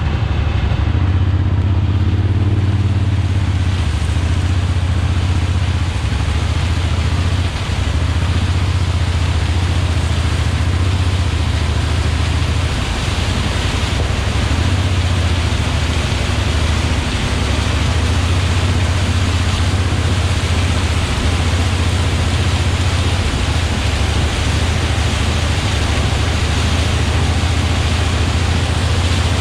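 Diesel engine of harvest machinery running steadily under load, a constant low drone under a loud, even rushing noise.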